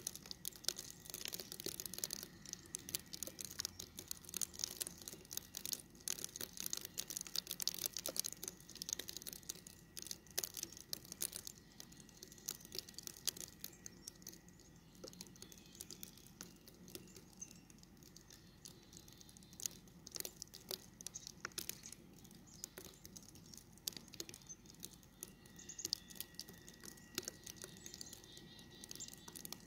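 Faint, dense crackling and ticking of snow, many tiny clicks a second, busier in the first dozen seconds and again near the end, over a faint steady high tone.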